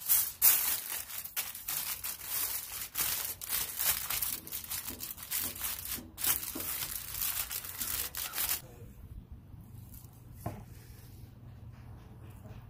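Aluminium foil crinkling and rustling as hands wrap it around a cooked tomahawk steak, stopping abruptly about eight and a half seconds in. A single short knock follows about two seconds later.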